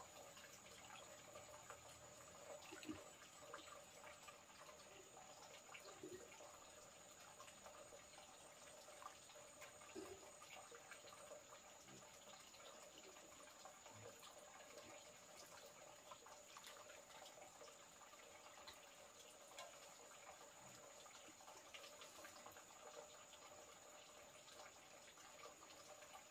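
Near silence: a faint, steady high-pitched insect drone with scattered small clicks and taps.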